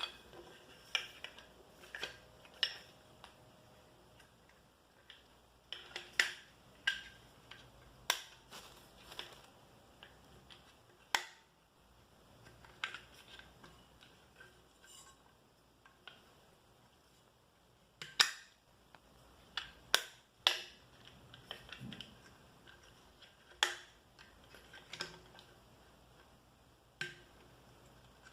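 Stainless steel bottle being handled: irregular sharp clicks and taps, a few loud knocks among lighter ones, spread across the whole stretch.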